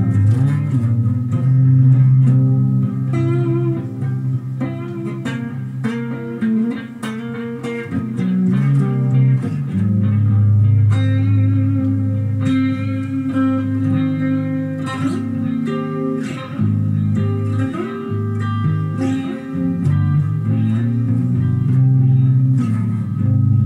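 Electric guitar being played: plucked notes and short runs over deep, held low notes.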